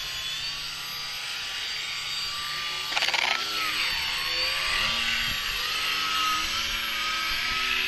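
Engines and propellers of two radio-controlled foam profile aerobatic planes, one gas-powered and one electric, buzzing overhead, their pitches rising and falling as the throttles are worked in hovers. A brief louder burst comes about three seconds in.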